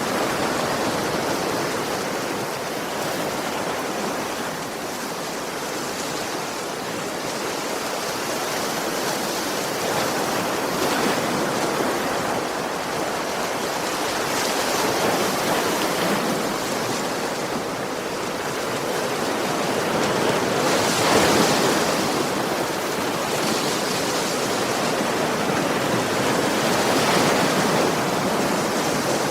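Sea waves breaking gently on a shore: a continuous rush of surf that swells and eases, with a louder surge about three-quarters of the way through.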